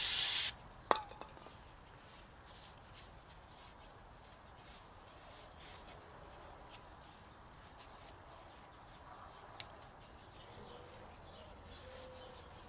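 Aerosol brake cleaner spraying in a loud hiss that cuts off about half a second in, followed by a sharp click. After that, only faint scattered ticks and rustling as a rag wipes the degreased aluminum hub face dry.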